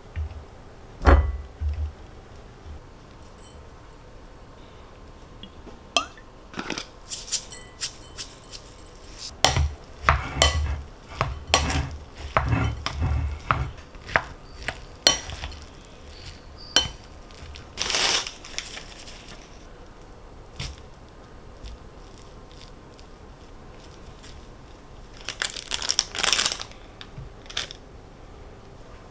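Dishes and cutlery being handled in a home kitchen: scattered clinks and knocks, busiest in the middle, with two longer noisy bursts, one about eighteen seconds in and one near the end.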